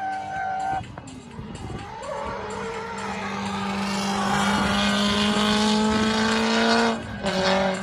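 Drift car engine running at high revs while it slides through a corner, tyres squealing. The engine note drops sharply just under a second in, then climbs steadily in pitch for several seconds before dropping sharply again near the end.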